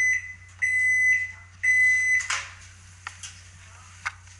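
Microwave oven timer beeping three times, steady half-second beeps about a second apart, signalling the end of the cooking cycle, followed by a sharp clack.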